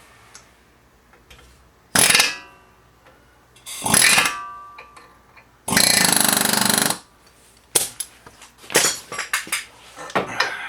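Pneumatic air hammer with a needle bit rattling against the end of a Ford Expedition's front axle shaft to drive it loose: two short bursts with metal ringing after each, then a longer burst of about a second. Scattered metallic knocks and clicks follow in the last few seconds.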